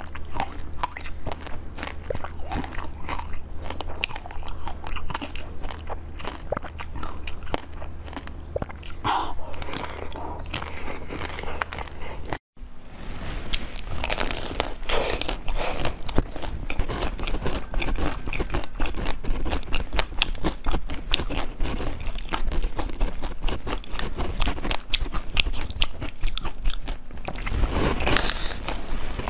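Close-miked eating sounds: biting into and chewing food, a dense run of small wet clicks and crunches, broken by a brief gap about twelve seconds in.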